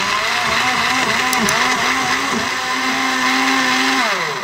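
Imaco countertop blender running, chopping spinach leaves: the motor's pitch dips and recovers several times as it takes the load, then holds steady. Near the end the motor is switched off and winds down with a falling pitch.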